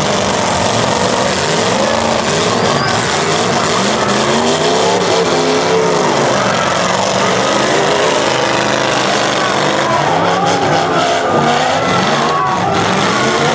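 Several semi-stock demolition derby cars' engines running hard and revving, their pitch rising and falling over and over as the cars drive around and push against each other on the dirt.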